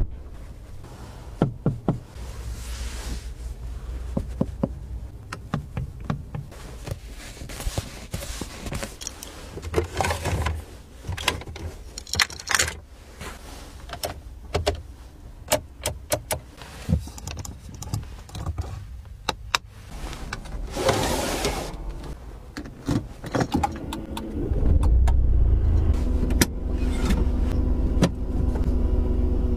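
Clicks and taps of a Smart Fortwo's cabin controls being worked one after another: air-vent adjusters, buttons, the gear selector. There is a short whir about two-thirds through. Near the end the car's 1.0-litre three-cylinder engine starts and runs with a steady low hum.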